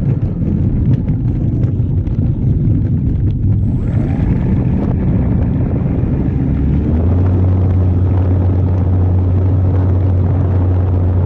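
Wind rumbling on the microphone, joined about seven seconds in by a steady low drone.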